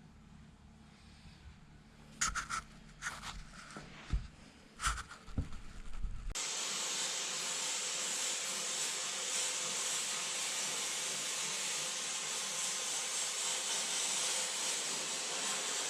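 A few knocks and clatters, then about six seconds in a steady hiss starts abruptly and holds, typical of spray painting with a spray gun or aerosol can.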